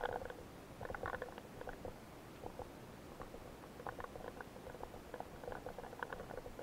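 Underwater clicking and crackling, heard through the submerged camera, coming in irregular clusters of quick clicks about a second in, around four seconds in and again near the end.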